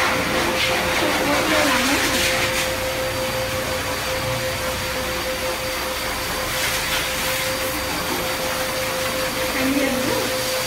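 Pet grooming dryer running steadily: a loud, even rush of blown air with a steady hum.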